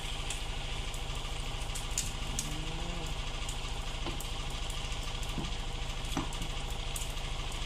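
Chicken, potatoes and carrots sizzling steadily in a frying pan, over a steady low hum, with a few light clicks.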